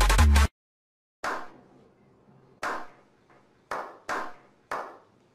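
Slow clap by a small group: separate hand claps about a second apart, each with a short echo, coming quicker near the end. Electronic music cuts off about half a second in.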